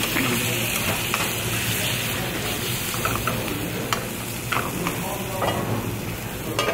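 Marinated chicken pieces sizzling steadily in a hot stainless steel frying pan, with a few sharp metal clinks in the second half as metal tongs turn the pieces against the pan.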